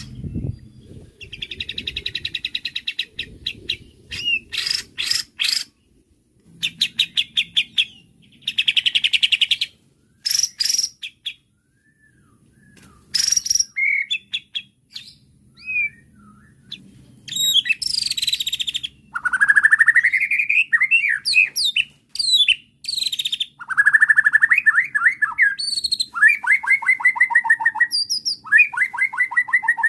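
White-rumped shama (murai batu) singing a varied, agitated song: sharp clicking notes, rapid rattling trills and whistled glides, in short phrases broken by brief pauses.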